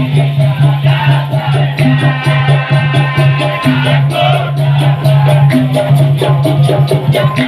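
Dikir barat ensemble music: percussion with maracas shaking a fast, even rhythm over a sustained low note that breaks briefly every couple of seconds.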